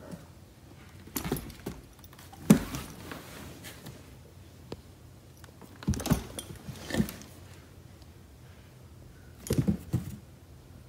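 A dog's claws clicking and scrabbling and its paws thumping on a hardwood floor as it pounces after a laser dot. The sound comes in four short bursts of clatter, the sharpest about two and a half seconds in.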